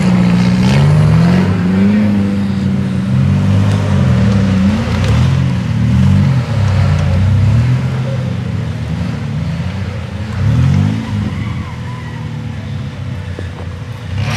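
Off-road rock buggy engine revving hard under load on a steep dirt climb, its pitch surging up and falling back again and again. It grows somewhat quieter in the last few seconds.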